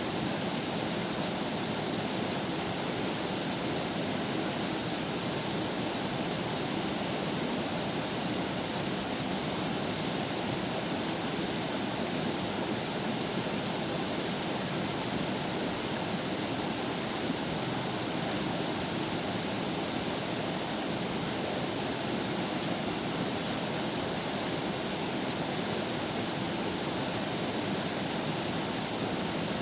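River water flowing over rocks: a steady, unbroken rushing with no changes.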